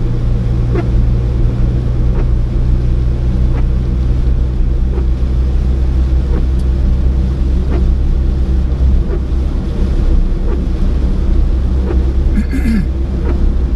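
Car driving, with a steady low rumble of engine and tyres on the road. Faint ticks come about every second and a half, and there is a brief higher sound near the end.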